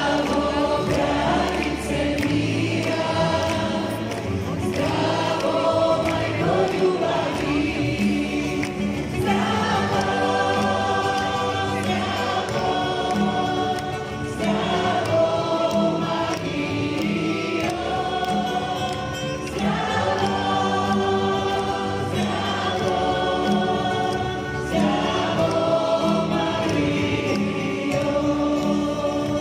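Live worship music: many voices singing a hymn together, accompanied by a worship band with acoustic guitar and keyboard through PA speakers.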